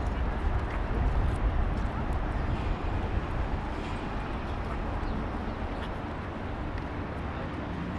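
City street ambience: a steady low rumble of traffic and town noise, loudest in the first couple of seconds and then easing, with a few faint clicks.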